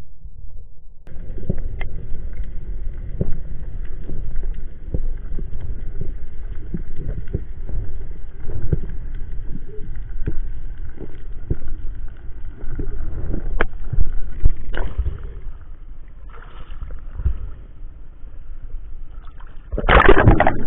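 Underwater sound picked up through an action camera's waterproof housing: a muffled rushing water noise with irregular low knocks and thuds. Near the end comes a loud splash and rush of water as the camera breaks the surface.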